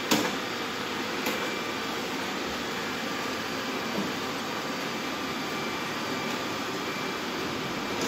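Many robot vacuums running together on a tiled floor, a steady whir and hiss of their motors and brushes. A sharp knock comes right at the start, and a lighter one about a second later.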